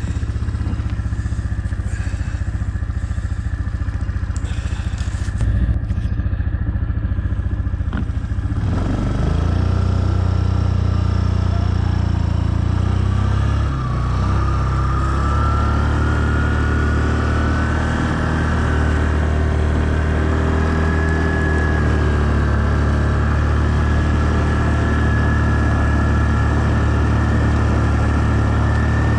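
2007 Yamaha Kodiak ATV's single-cylinder engine running while it pushes deep snow with a front plow blade. The engine picks up and works harder about nine seconds in, and a thin whine rises in pitch around the middle.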